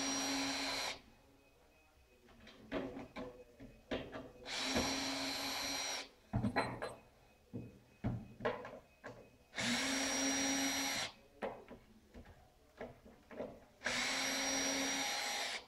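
Electric drill-driver backing screws out of a wooden chair frame: four short steady runs of its whine, each about a second and a half, the first already going at the start. Between the runs come small clicks and knocks of handling.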